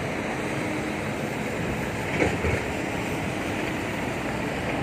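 Heavy diesel dump truck running steadily, a dense low rumble with a faint steady hum, and a brief knock about two seconds in.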